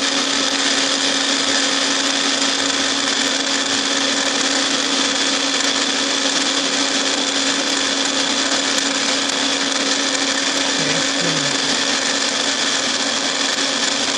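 Manual milling machine running steadily with an end mill cutting a helical groove into a workpiece turned by a dividing head: a steady machine whine with a strong low hum and a high tone.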